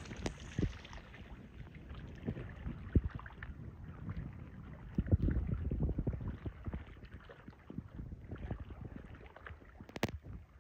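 Kayak on the water: water sloshing against the hull under a low rumble, with irregular knocks and clunks, louder for a stretch about halfway through.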